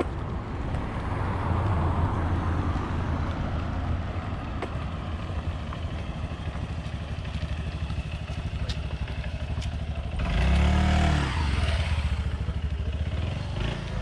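A motor vehicle's engine running, a steady low hum, with a louder vehicle passing close by about ten seconds in.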